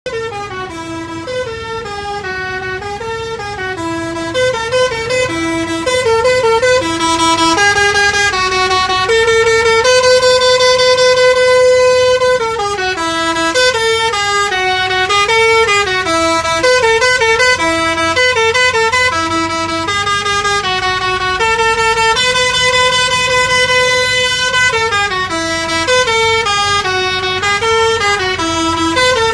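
Imitation Basuri telolet horn, the multi-tone musical air horn fitted to Indonesian buses, playing a melody of stepped notes that go up and down in quick phrases, with one long held note about ten seconds in.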